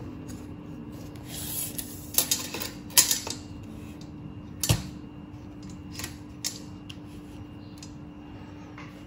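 Steel tape measure being pulled out and laid against an aluminium extrusion rail: a short rustle about a second in, then scattered metallic clicks and taps, the sharpest about three seconds in. A faint steady hum runs underneath.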